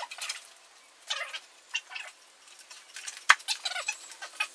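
Metal tools and parts clinking and rattling as they are handled, in short irregular clusters, with one sharp click, the loudest, a little over three seconds in.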